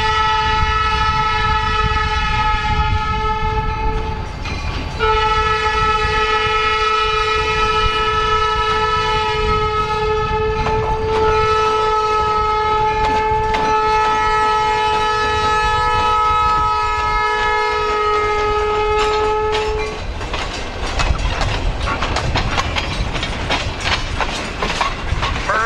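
EMD SD40 diesel locomotive's air horn sounding for a grade crossing, with a shorter blast and then a long blast of about 15 seconds, over the low rumble of the passing locomotive. After the horn stops, the freight cars rolling by give a rapid clickety-clack of wheels over the rail joints.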